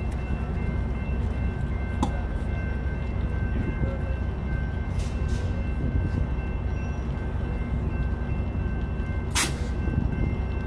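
Steady low rumble of an Amtrak California bilevel Capital Corridor train standing at the platform, with a faint steady whine over it. A short, sharp hiss sounds once, near the end.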